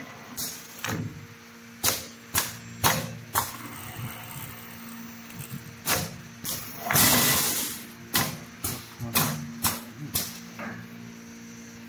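Coconut coir broom-making machine running with a steady motor hum, its head striking sharp clicks about twice a second in runs as the brush head is filled, and one longer hissing burst about seven seconds in.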